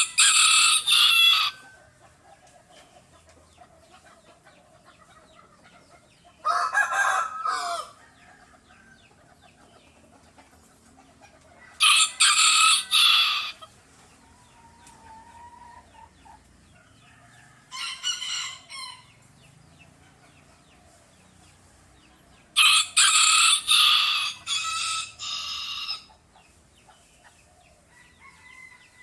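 Rooster crowing five times, a few seconds apart, each crow loud and lasting about one to three seconds.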